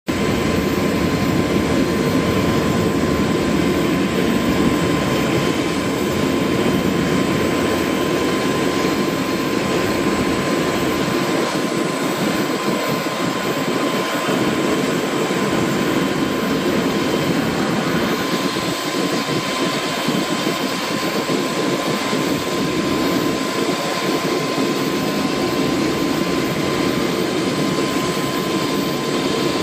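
Bell 429 GlobalRanger helicopter running steadily on the ground with its main rotor turning: twin turboshaft engines giving a constant turbine whine over a dense rush of rotor and exhaust noise.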